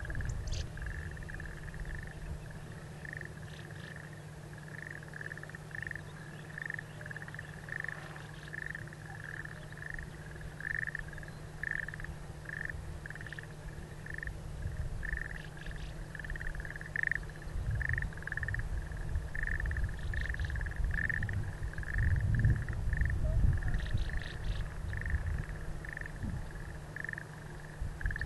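An animal calling over and over with a short note at one pitch, about once a second. Under it runs a low rumble that swells about two-thirds of the way through.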